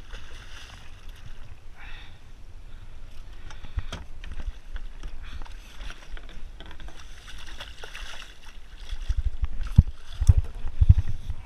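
Hooked saithe thrashing at the surface beside a boat, with repeated water splashes. Heavy low thumps and knocks in the last couple of seconds are the loudest part, as the fish is brought in with a gaff.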